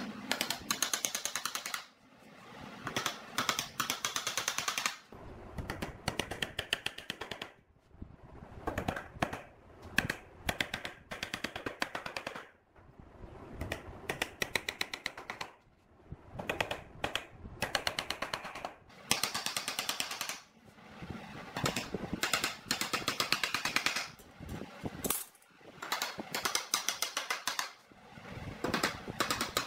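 Steel bar clamps on a round-wood frame being worked and tapped with a hammer: quick runs of sharp clicks and taps in bursts of a second or two, with short pauses between.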